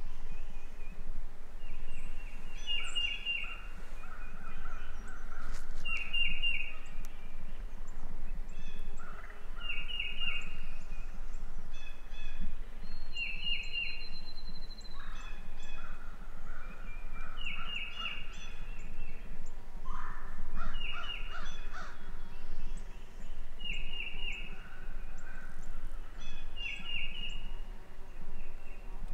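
Wild turkey tom gobbling in short rattling bursts, while a smaller bird repeats a short, high chirping phrase every three to four seconds.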